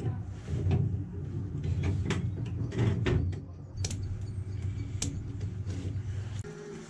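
Clicks and knocks of test leads and a digital multimeter being handled on a steel workbench, over a steady low hum that stops near the end.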